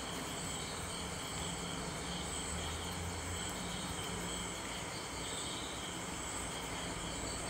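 Steady faint background noise: a low hum with a few even, high-pitched tones above it, like insects chirring, and no distinct events.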